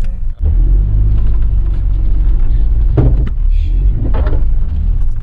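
Steady low rumble of a vehicle on the move, road and engine noise heard from inside the cabin.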